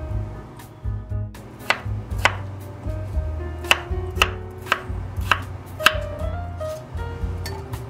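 Chef's knife chopping a peeled potato into cubes on a wooden cutting board, sharp knocks about twice a second starting after a second or so, over soft background music.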